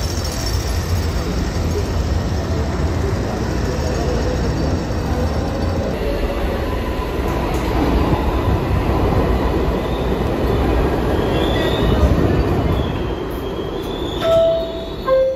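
Steady city din, then a New York City subway train in a station from about six seconds: a rumbling run with high, gliding wheel squeals. Near the end comes a two-note falling chime as the car doors close.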